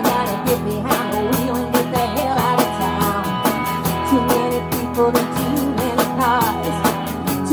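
A live band playing an alt-country song: a woman singing over acoustic and electric guitars, with a drum kit keeping a steady beat.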